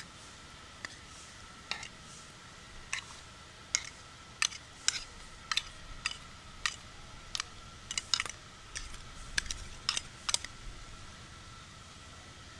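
A run of light, sharp clicks and taps, irregularly spaced about half a second apart, stopping about two seconds before the end, over a faint steady high tone.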